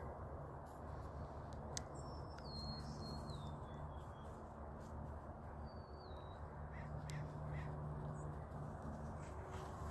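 Birds calling in the open air: a thin whistle that drops in steps, a shorter whistle a couple of seconds later, and a few short harsher calls near the end, over a steady low background rumble.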